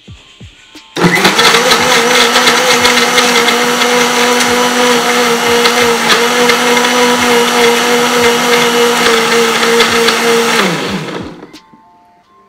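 Electric mixer-grinder blending milk, banana, dates and ice cubes. The motor switches on abruptly about a second in and runs at a steady pitch, with a constant stream of sharp clicks from the ice hitting the jar. Near the end it is switched off and winds down, falling in pitch.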